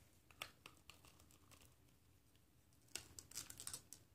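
Faint clicks and rustles of hard plastic being handled: action-figure pieces being snapped together, with a short cluster of clicks about three seconds in.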